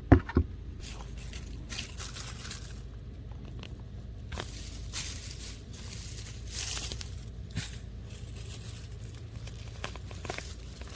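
Digging potatoes out of garden soil: scattered rustling, crunching and tearing of soil, roots and plant stems, with one loud knock right at the start.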